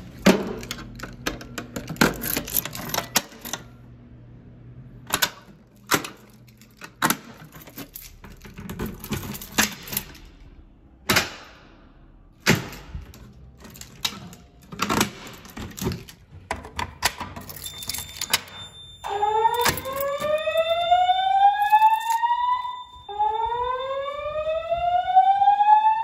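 Clicks, knocks and key jingle from handling a door and a Notifier pull station, then about three-quarters of the way in a fire alarm speaker starts a slow whoop tone: two rising sweeps of about four seconds each, with a steady high beep alongside. The alarm is sounding through Gentex speaker strobes driven by a Notifier NFS2-640 panel with digital voice command.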